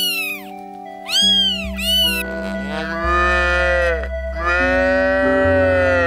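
A kitten meowing: a few short, high, rising-and-falling meows in the first two seconds. Then a cow lowing: two long moos of about two seconds each, over steady background music.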